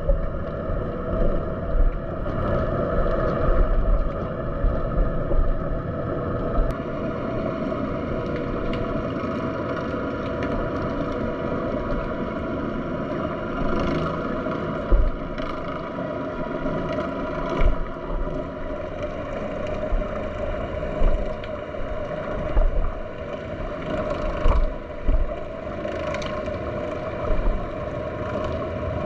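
A steady mechanical drone heard underwater, like distant engine noise carried through the water, with scattered faint clicks and a few low thumps.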